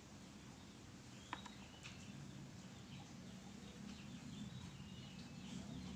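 Quiet background with a low hum and faint bird chirps, and a single light click a little over a second in.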